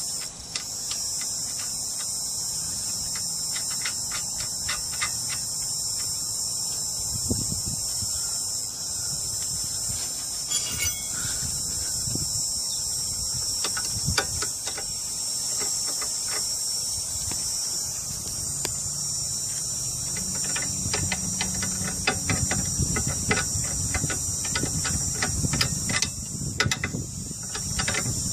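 Steady, high-pitched chorus of insects, with scattered metallic clicks and clinks from a hand wrench threading and tightening a nut on a lower control arm bolt. The clicks come more often in the last several seconds.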